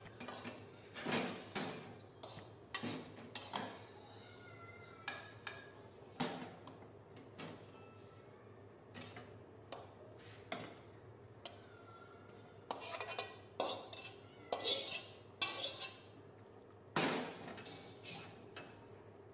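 Metal spatula scraping and knocking against a metal wok as stir-fried water spinach is scooped out into a bowl, in irregular scrapes and clanks.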